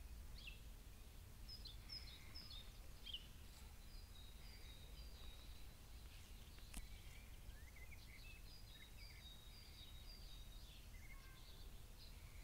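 Faint chirping of small birds: many short, high notes and quick little glides, scattered throughout, over a low steady rumble.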